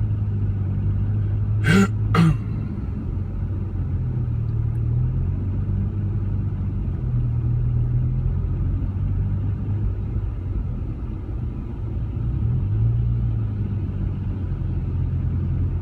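Rover 45 car engine running steadily inside the cabin while the car creeps along in slow traffic. Its pitch lifts slightly a few times as it is given a little throttle. About two seconds in there are two short, sharp sounds close to the microphone.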